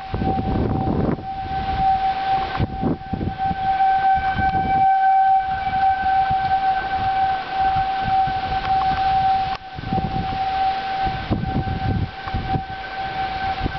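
Outdoor civil-defense tornado warning siren sounding, holding one steady pitch throughout, with gusts of wind rumbling on the microphone.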